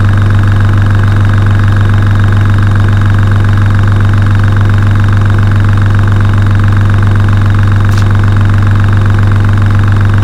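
Airbrush compressor motor running steadily with a strong low hum as it charges its air tank toward the 2 bar (30 psi) cut-out.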